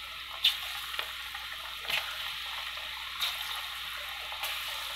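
Chana dal vadai batter deep-frying in hot oil: a steady sizzle with a few brief louder crackles as pieces of batter go into the oil.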